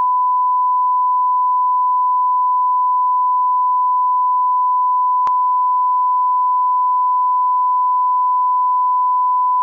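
Steady 1 kHz line-up test tone sounding with colour bars: one continuous pure beep at a constant pitch, with a faint tick about halfway through.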